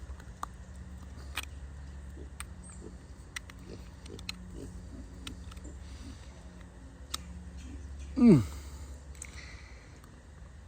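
Scattered small clicks and knocks, then about eight seconds in a pig's loud, short call that slides steeply down in pitch.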